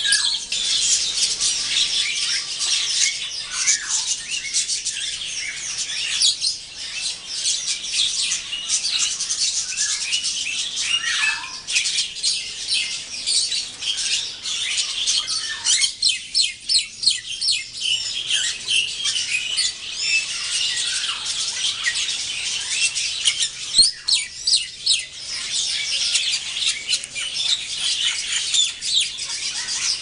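A mixed flock of caged birds, songbirds and parrots together, calling at once in a large colony aviary: a dense, unbroken chatter of high chirps, squawks and whistles, with an occasional lower call sliding downward.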